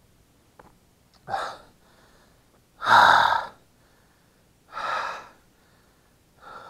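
A man breathing hard: four heavy, rasping breaths about every two seconds, the loudest about three seconds in, the sound of someone out of breath.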